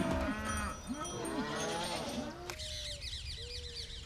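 A herd of goats and cattle calling, with many short bleats and lows overlapping. About two and a half seconds in it cuts off suddenly and gives way to birds chirping.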